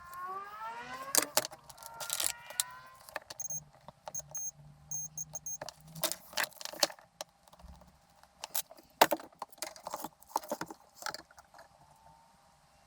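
Small metal parts and hand tools clicking, knocking and jangling as they are handled, with a short rising whine in the first few seconds.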